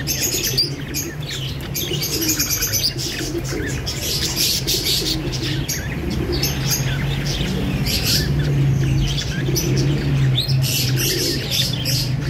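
A dense chorus of small caged birds chirping and tweeting, with pigeons cooing softly and low underneath.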